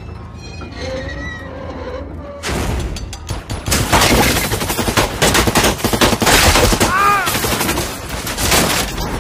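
Heavy automatic gunfire, many guns firing rapid overlapping bursts, starting about two and a half seconds in, with bullets striking and splintering a wooden house.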